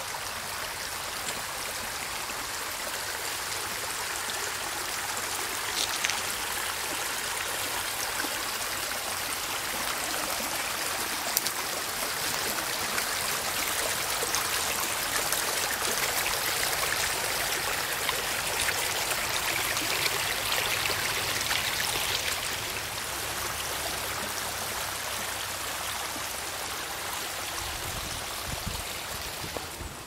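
Shallow creek water running over rocks and pouring out of a culvert pipe outlet: a steady rushing splash.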